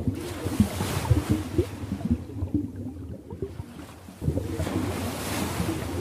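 Ocean waves washing in and out, with many small splashes. The surf ebbs about two seconds in, then the next wave surges back in about four seconds in.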